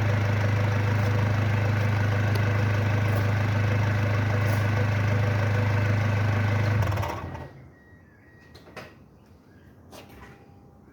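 Vehicle engine, its exhaust fitted with a turbocharger-style whistle, idling steadily with a low hum, then switched off about seven seconds in and running down quickly. A few faint clicks follow.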